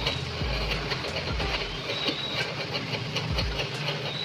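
Mutton pieces and whole green chillies frying in hot oil in an aluminium kadhai: a steady sizzle with many small pops, while a wooden slotted spoon stirs and scrapes against the pan.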